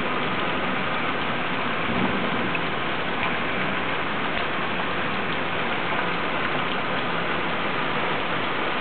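Heavy rain falling steadily, an even dense hiss of drops striking the lawn and pavement.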